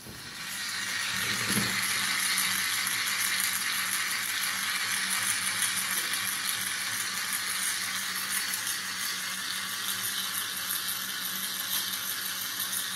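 Connex H2O toy water pump running: its battery-powered DC motor and gearbox give a steady whirring rattle with a constant low hum. It swells in over the first second.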